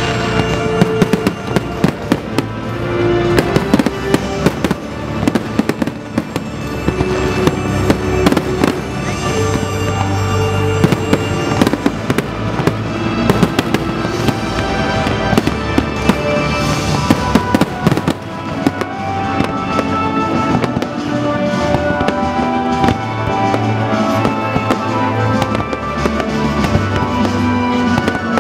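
Fireworks display: a rapid barrage of bangs and crackles that thins out somewhat after about two-thirds of the way, over loud accompanying music with held notes.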